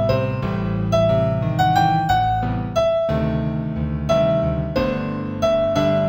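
Solo piano playing a slow new-age piece in G major, with single melody notes ringing out over held chords.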